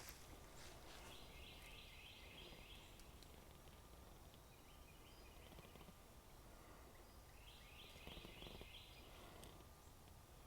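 Quiet forest ambience: faint, high-pitched trilling calls from small wild creatures come and go in spells of a second or two, several times over.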